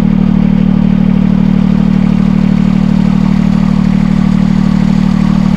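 Chinese mini excavator's engine running steadily with an even pulse, close to the hydraulic control valve block.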